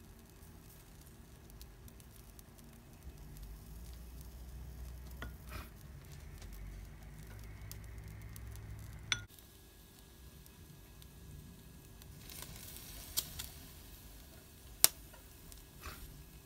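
Sauce-basted pork belly skewers sizzling faintly on an electric grill, with a few sharp clicks about halfway through and near the end.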